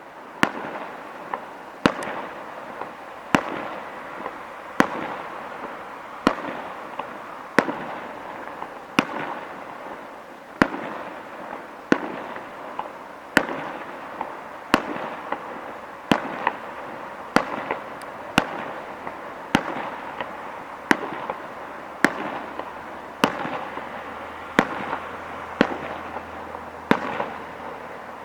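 Fireworks display: a regular series of sharp bangs, roughly one every second and a half, over continuous noise.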